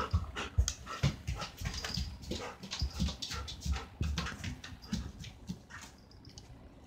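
A German Shepherd and a ginger kitten moving about on a fabric sofa: irregular rustling, light clicks and soft thumps that fade out near the end.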